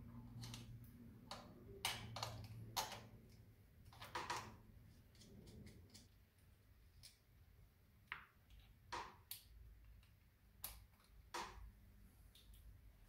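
Faint, scattered small metal clicks and ticks as the clutch cable and its fittings are handled and fitted at the release lever on a Triumph Bonneville's clutch cover. A faint low hum underlies the first half and fades about six seconds in.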